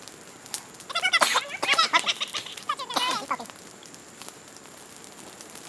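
Baby chipmunks squeaking: a quick run of high, wavering cries about a second in, lasting a couple of seconds.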